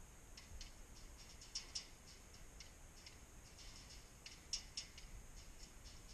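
Faint, irregular clicking and rattling, a few sharp clicks standing out about a second and a half in and again about four and a half seconds in.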